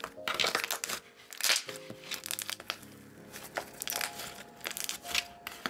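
Chewy wood-glue thick slime being stretched, pulled and squeezed by hand, giving a run of irregular crackly pops and squishes.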